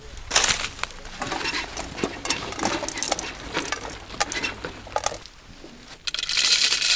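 Dry shelled maize kernels clicking and rattling as sacks of grain are handled and set on a weighing scale. About six seconds in, a loud, steady rush of kernels poured into the cup of a grain moisture meter.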